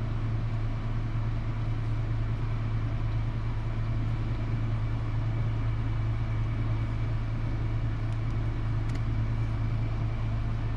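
A steady low machine hum with a hiss over it, unchanging throughout, and a couple of faint ticks about nine seconds in.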